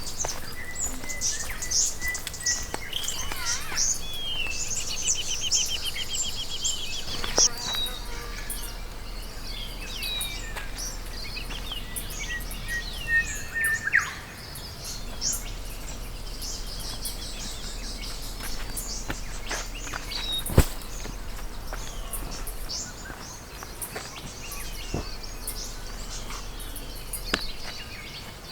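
Wild birds calling and chirping in bushland, with a rapid trill about four seconds in and slow whistled notes twice. A single sharp click sounds about twenty seconds in.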